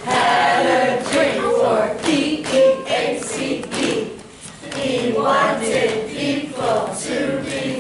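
A group of children and adults singing together unaccompanied, in short chanted phrases, with some hand clapping.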